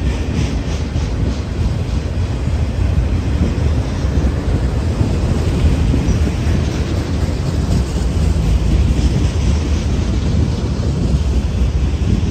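Freight train rolling past: a loud, steady low rumble with a hiss above it.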